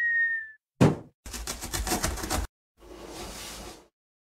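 Cartoon sound effects for an animated box-opening intro: a high tone sliding slightly down at the start, a thump just before a second in, a fast rattling clatter lasting about a second, then a softer hiss that fades out.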